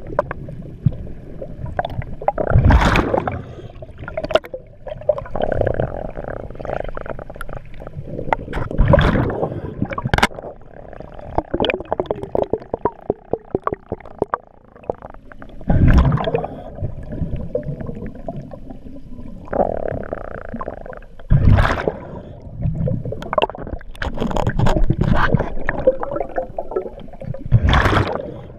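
Scuba diver breathing through a regulator underwater: a loud gurgling rush of exhaled bubbles every five to seven seconds, with quieter regulator noise between breaths.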